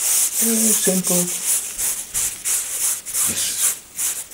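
A cloth rubbed back and forth over a painted canvas, spreading a thin coat of oil so the paint will glide more easily. It makes a quick, even series of hissing swishes, about three strokes a second.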